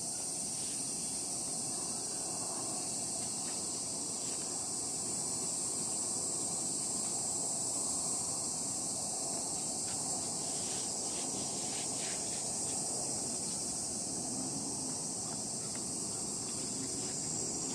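A steady, high-pitched insect chorus, with a few faint clicks about two-thirds of the way through.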